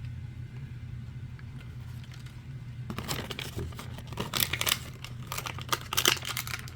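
Packaging crinkling and tearing as it is handled and opened, in a quick irregular crackle starting about three seconds in, over a steady low hum.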